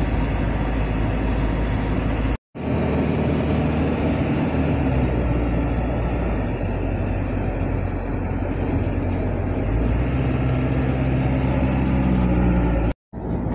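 Engine and tyre noise of a moving truck heard from inside its cab while cruising at motorway speed, a steady hum and rumble. It cuts out to silence twice, briefly, about two and a half seconds in and near the end.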